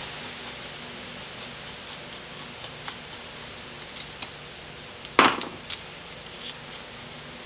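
Light clicks of small metal parts and hand tools handled on a workbench while a transmission valve body is taken apart, with one loud clank about five seconds in.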